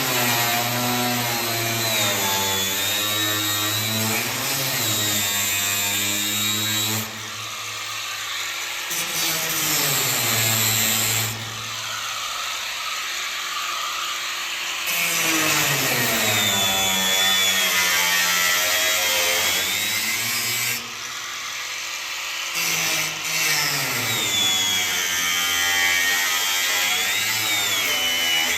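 Angle grinder cutting metal. Its motor pitch drops and climbs again over and over as the disc bites and eases off, with a few short lulls.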